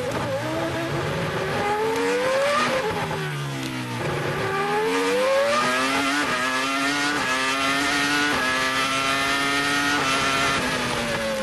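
Onboard sound of a 2002 Arrows A23 Formula 1 car's Cosworth V10 at racing speed. The engine note rises under acceleration, drops sharply on lifting and downshifting about three seconds in, then climbs again through several quick gear changes before falling away near the end.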